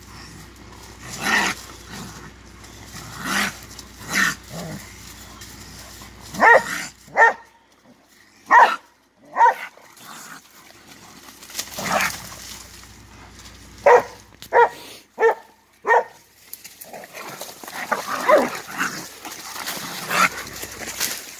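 Blue Lacy dog barking in short, sharp barks, about fourteen of them in uneven bursts and often in quick pairs, as it holds a cornered wild animal at bay.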